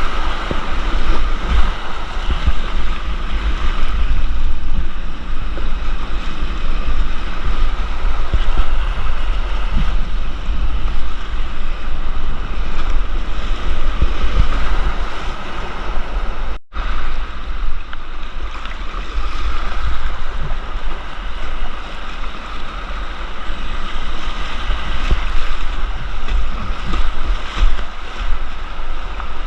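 Rushing whitewater of a rocky creek heard from a kayak, a steady loud wash of water with deep rumbling buffeting on the camera microphone. The sound cuts out for an instant about halfway through.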